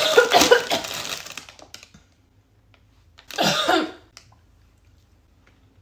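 Crackly rustling and clicking that fades out over about two seconds. About three and a half seconds in comes one short vocal sound, like a cough or grunt.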